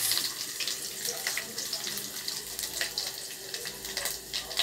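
Chopped onion and garlic sizzling in hot oil in a frying pan, with scattered crackles, as a wooden spatula moves them about.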